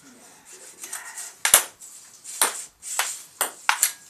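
Table-tennis rally: the celluloid ball clicks sharply off the paddles and table about five times, starting about one and a half seconds in and coming roughly every half second.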